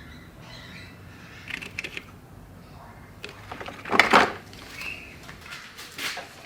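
Scattered clicks and knocks of objects being handled, with a louder double knock about four seconds in.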